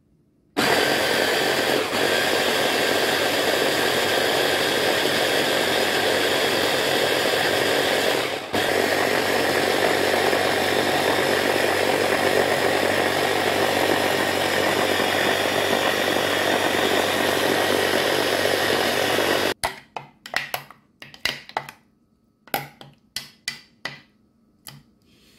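Small electric blender running steadily, pureeing wet seasoning ingredients (peppers, turmeric, chili) into a paste. It starts about half a second in, dips briefly about eight seconds in, and stops near twenty seconds. A spoon then knocks and scrapes in the jar in a run of short clicks.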